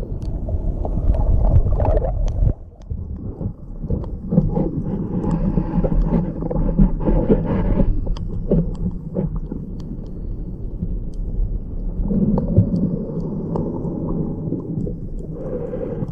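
Muffled low rumbling and gurgling of sea water, as picked up by a submerged camera, with scattered small clicks.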